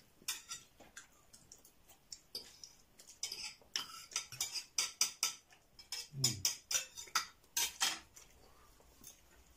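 Knives and forks scraping and clinking on ceramic plates as two people cut and eat their food, in irregular clicks and scrapes. It is busiest in the middle and dies away near the end.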